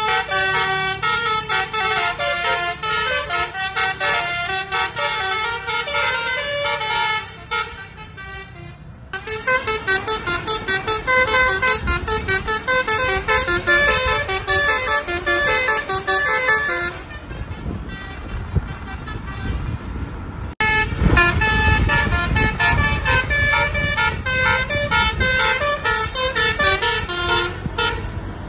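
Telolet basuri multi-tone bus horns with roof-mounted trumpets playing long melodic runs of short, rapidly changing notes, over the low rumble of the bus. The tune eases off briefly about seven seconds in, then resumes.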